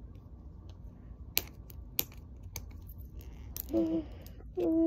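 Sharp plastic clicks and small ticks from hands prying at the clear plastic part of a toy capsule, followed near the end by two short hums, the second the loudest.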